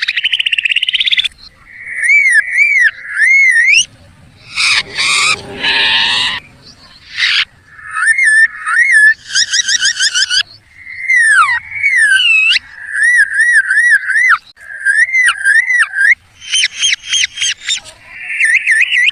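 Bird calls imitated by a hunter: a long run of whistled chirps, warbling glides and rapid trills, with a harsher, raspier call from about four to six and a half seconds in.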